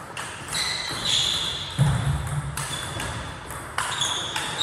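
Table tennis rally: the plastic ball clicking sharply off paddles and the table at an irregular pace, with more ball hits from other tables in the hall.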